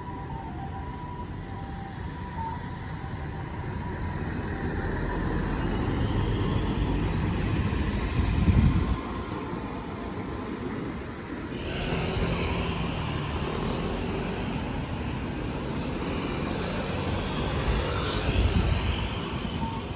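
Road traffic at a junction, with cars passing and one passing close about eight seconds in. Then a city bus's engine comes nearer and the bus passes close near the end.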